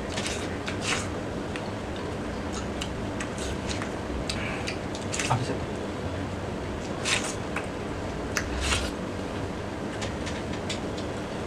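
Two people eating watermelon slices, with short sharp biting and slurping sounds at irregular intervals over a steady background hum.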